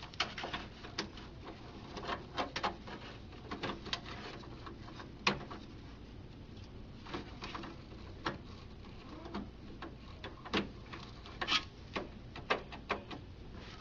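Irregular light plastic clicks and taps, a dozen or so spread out, as new feed rollers are handled, slid onto their shaft inside a colour laser printer and turned until they lock in place.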